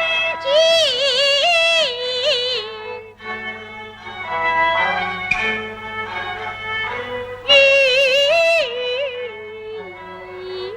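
Peking opera music: a high, wavering melodic line with strong vibrato over the accompanying ensemble, with a short percussive clack about five seconds in.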